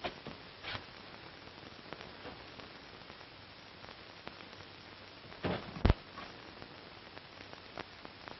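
Steady hiss and crackle of an old film's optical soundtrack, with scattered faint clicks and one sharper click about six seconds in.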